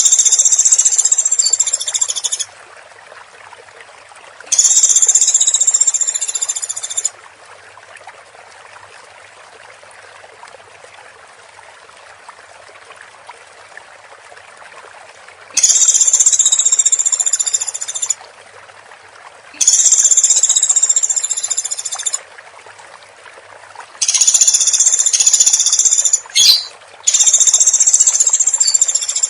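Woodpecker calling in repeated high-pitched trilled bursts, each about two and a half seconds long, six in all with gaps of a few seconds between them, and one short extra note between the last two.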